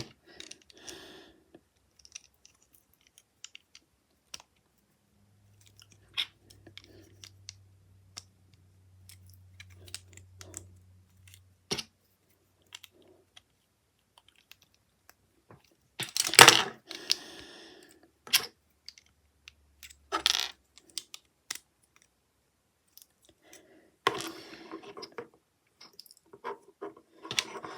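Small plastic Lego pieces clicking and rattling as they are handled and snapped together, with louder bursts of clattering about halfway through and again near the end.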